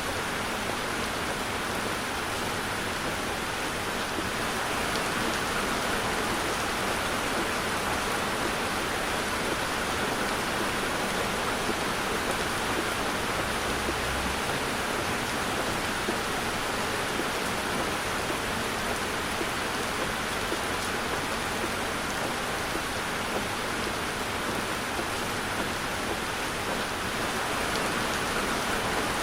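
Heavy rain falling on a car, a steady even hiss with no let-up.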